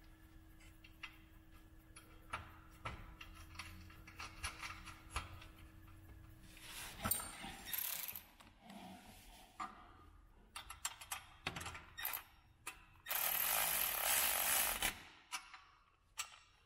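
Hand tools on bumper mounting hardware: scattered metal clicks and clinks, with a loud steady rushing noise for about two seconds near the end.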